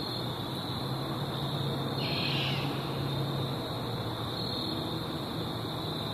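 An unidentified night bird gives a low, drawn-out hoot-like call that starts about a second in and holds for over two seconds, with a short rough burst higher up about two seconds in. Night insects buzz steadily throughout.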